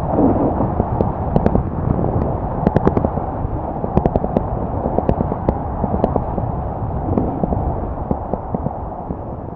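Snowboard riding down a ski piste: a steady rushing scrape of the board on the snow, broken by frequent sharp clicks and knocks.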